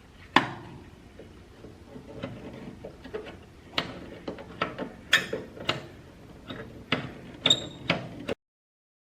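Sharp metal clicks and knocks of tools and small parts being handled while a cover is worked off a machine's housing, with one loud knock near the start, a quick run of clinks later on and a short metallic ring. The sound cuts off suddenly near the end.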